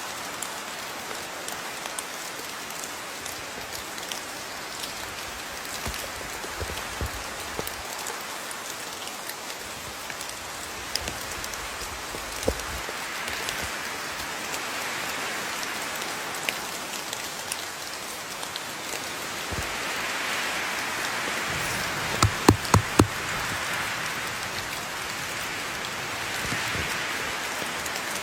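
Steady rain falling, with scattered drop ticks through the hiss. A quick run of about four sharp knocks comes a little past two-thirds of the way through.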